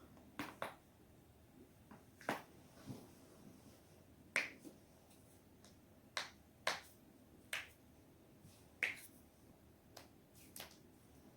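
Spinal joints cracking as the neck and back are twisted: a series of sharp pops, some single and some in quick pairs, about ten in all.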